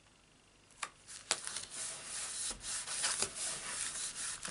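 Cardstock rustling and rubbing as a card insert is handled and slid against the card, with two sharp taps about a second in.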